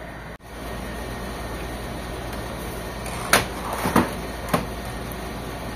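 Three sharp knocks and clicks in the second half as the plastic casing of an HP Officejet 7612 printer is handled and pried during disassembly, over a steady background hum.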